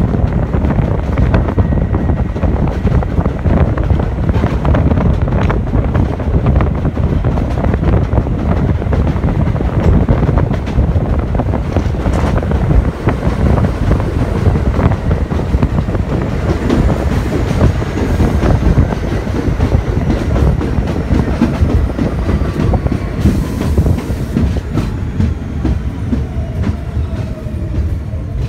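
NYC Subway train running on elevated track: a heavy steady rumble with wheels clattering over the rails. Over the last several seconds a whine falls in pitch and the rumble eases as the train slows into a station.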